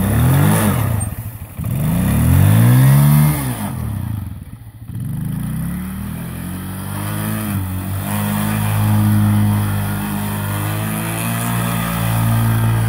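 Small children's quad bike engine revving up and falling back three times in a row, then running at a fairly steady speed for the second half as it spins donuts in snow.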